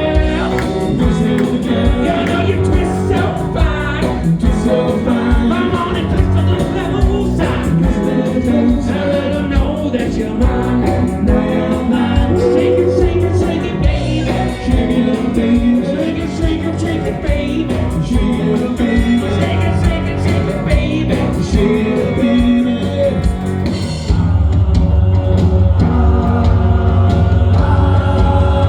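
Live band playing with a singer and guitar. About 24 seconds in, the sound changes suddenly to a heavier bass and less treble.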